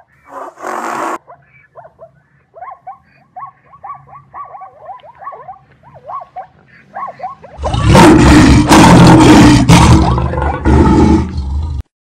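Cartoon animal sound effects. After a short breathy burst comes a run of quick, high zebra yelps, several a second. From about seven and a half seconds a loud lion roar runs for about four seconds and cuts off just before the end.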